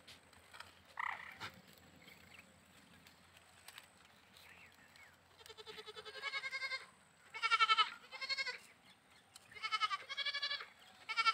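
Goats bleating: after a faint call about a second in, a run of about six loud, quavering bleats starts about five seconds in, several coming in quick pairs.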